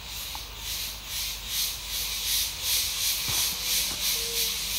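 Night insects buzzing in a high chorus that pulses evenly, about three swells a second.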